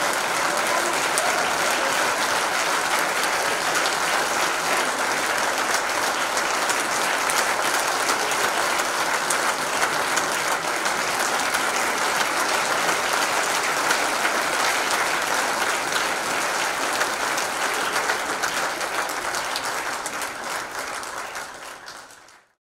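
Concert audience applauding steadily, a dense even patter of clapping that fades out near the end.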